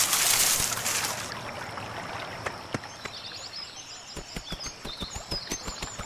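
Cartoon jungle ambience: a brief rushing noise at the start, then birds chirping and a quick run of light footsteps from a small hoofed animal, a mouse deer, walking, from about four seconds in.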